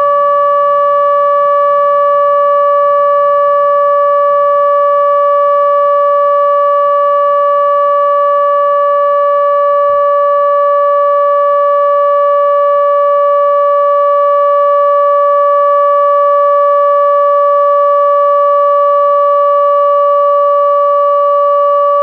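ATI HPSS-32 electronic outdoor warning siren sounding its steady Alert tone: one loud, unwavering pitch that neither rises nor falls, the nuclear plant's emergency siren under test.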